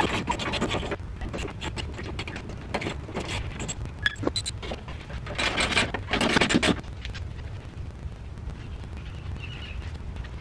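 Hand ratchet clicking in several short bursts as the bolts of a truck's center support bracket are loosened, with small metal clinks in between.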